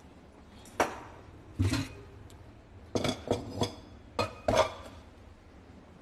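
Kitchenware knocking and clinking as dishes and pans are set down and moved on a counter: about seven separate knocks, most of them between three and five seconds in.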